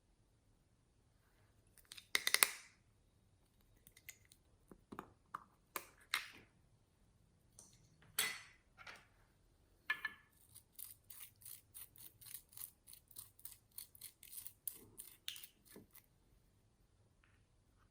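Close-up handling of clear slime with makeup mixed in: scattered sharp clicks and crackles, then a quick run of short clicks and pops about three a second through the second half.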